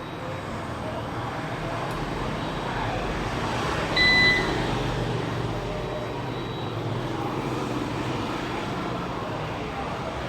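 Steady rumbling background noise with a single short, high electronic-sounding beep about four seconds in.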